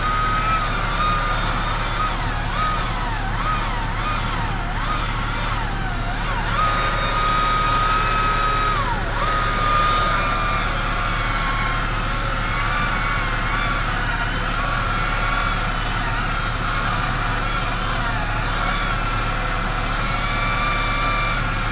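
A machine's engine running steadily, with a whine that swoops up and down in pitch for several seconds, holds level for a few seconds, then wavers again.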